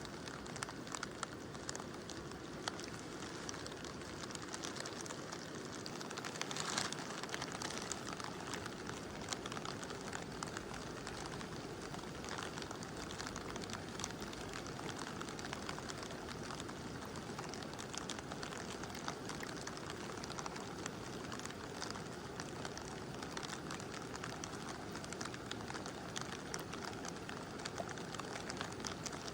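Steady rush of a mountain river with rain falling, the drops heard as many small scattered ticks over the water noise. A brief louder swell comes about seven seconds in.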